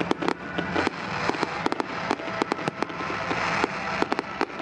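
Aerial firework shells bursting in a rapid, irregular string of sharp bangs and crackles.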